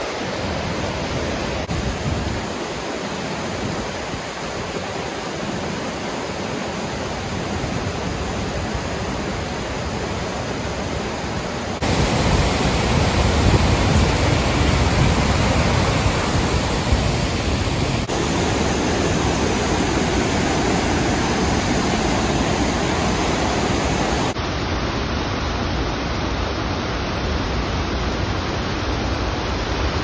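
A swollen, muddy creek and waterfall in flood, a steady rushing of fast water over rocks. The sound changes abruptly several times, and about twelve seconds in it jumps louder and deeper for about six seconds.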